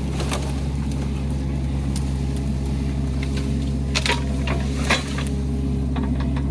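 Excavator's engine running steadily, with a few sharp metallic clanks about four and five seconds in.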